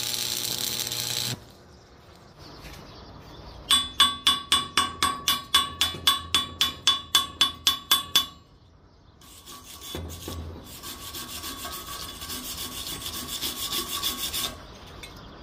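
Welding arc sizzling steadily, cutting off about a second in. Then a hand tool is rubbed back and forth over the steel weld bead: a run of loud strokes, about four a second, with a metallic ring, then softer rubbing strokes after a short pause.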